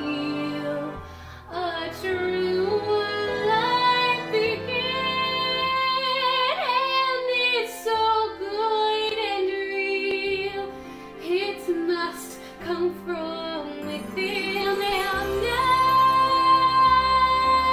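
A teenage girl singing a musical theatre solo with instrumental accompaniment, building near the end to a louder, long held note.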